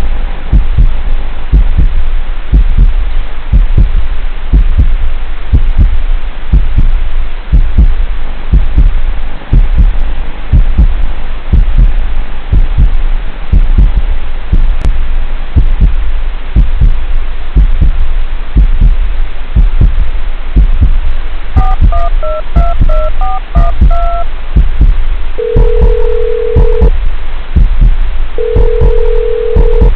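Wind buffeting a small onboard microphone: a loud, heavy rumble with irregular thumps. About two-thirds of the way through comes a quick run of electronic beeps, followed later by two long steady beeps.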